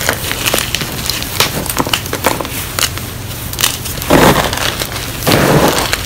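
Blocks of gym chalk crumbling and crunching under the fingers in a tray of broken chalk: many small sharp crackles, then two longer, louder crunches in the second half.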